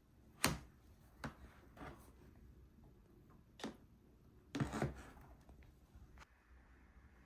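Handling noise from plastic bath baskets on a wooden desk: a few light knocks and clacks. The sharpest comes about half a second in, and a short cluster of louder knocks comes near five seconds in.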